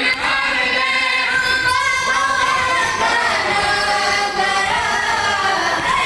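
Boys' voices chanting a noha, a Shia mourning lament, together in unison with long held notes, unaccompanied by instruments.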